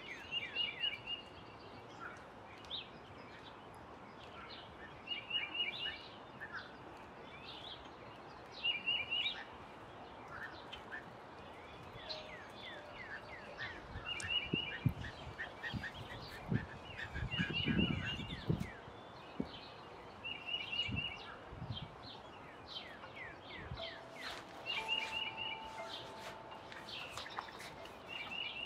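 Outdoor birdsong: several wild songbirds chirp and call, with one short stacked call repeating about every four seconds. A low rumble comes through around the middle.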